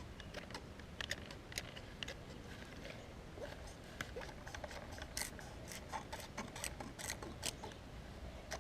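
Small toy water gun being fired in short squirts: irregular faint clicks of its plastic trigger mechanism, a few each second.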